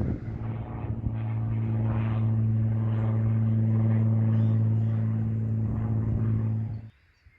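A steady engine drone: a low hum with many overtones holding one pitch, cutting off abruptly near the end.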